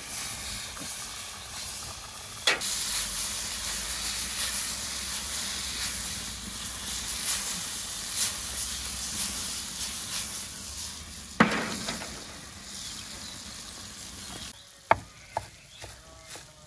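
Vegetables sizzling in a hot steel pan over a wood fire as they are tossed, a steady hiss broken by two sharp knocks of the pan. The sizzle stops near the end, and a knife starts chopping parsley on a wooden board in quick sharp strokes.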